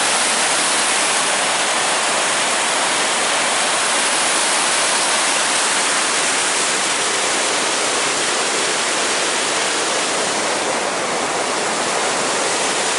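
Whitewater churning out of a dam's underwater outlet gate and forming a rapid: a steady, loud rush of water.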